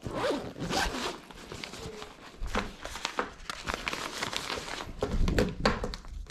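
Crinkling of a small wrapped packet and rustling of a fabric bag as items are handled and stuffed into it, with scattered light clicks and knocks.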